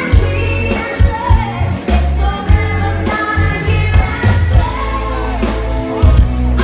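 Live pop band playing: a woman singing lead into a microphone over bass guitar, keyboards and drums, with the strong low thumps of the drums carrying through.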